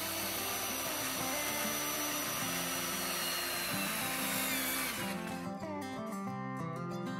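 Corded circular saw cutting through framing lumber, its whine falling in pitch, over background music. The saw sound stops abruptly about five seconds in, leaving plucked-string music.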